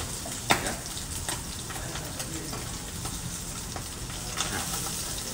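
Salmon fillet sizzling steadily skin-side down in a hot frying pan on a gas burner, the skin being seared first so it crisps and does not stick. A sharp click about half a second in as the metal tongs touch the pan.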